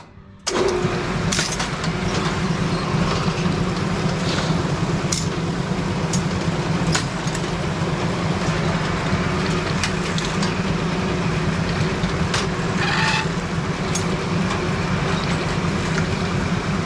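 Brunswick pinsetter starting up about half a second in and running a cycle: a steady motor and gearbox hum with scattered clanks and clicks from the moving deck and rake parts.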